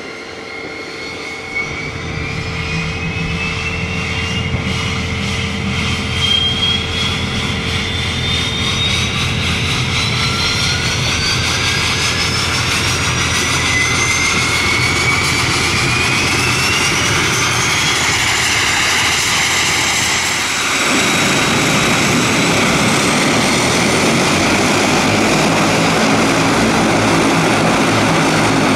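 Dash 8-102 turboprop engines starting: turbine whines rise steadily in pitch for about twenty seconds, a second whine climbing behind the first. About twenty seconds in, the sound turns into a fuller, even rush as the propellers spin up.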